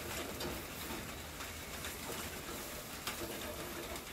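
Steady hiss of rain falling, with a few faint clicks of a metal spatula against the grill grate.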